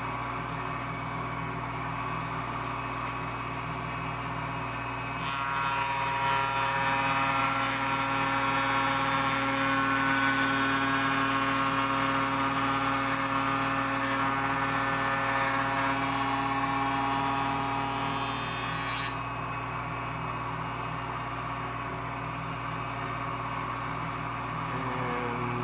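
Spindle shaper running with a steady motor hum. About five seconds in, the cutter starts cutting the edge profile into a wooden stile, adding a louder rushing cutting noise for about fourteen seconds, after which the machine runs free again.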